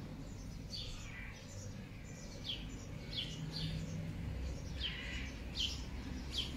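Small birds chirping: short, quick chirps that slide downward in pitch, repeated at irregular intervals, over a low steady background rumble.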